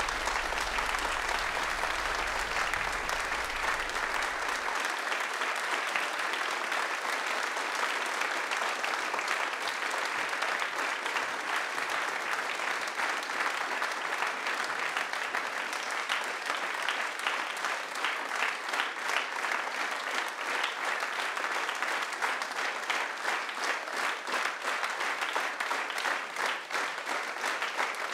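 Theatre audience applauding steadily at a curtain call, a dense wash of many hands clapping. A low hum underneath stops about five seconds in.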